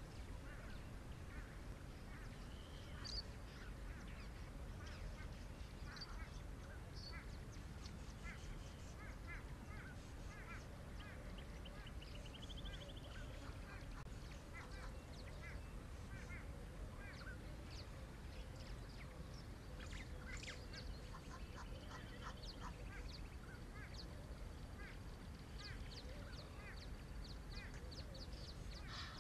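A chorus of wild birds: many short chirps and calls scattered throughout, with a quick trill about twelve seconds in, over a low steady rumble. A steady high thin tone joins in for the last third.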